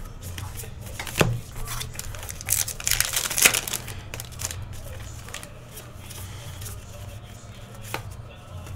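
Hands tearing open a trading-card pack, the wrapper crinkling loudest about three seconds in, then cards being handled and slid apart, with a few sharp clicks.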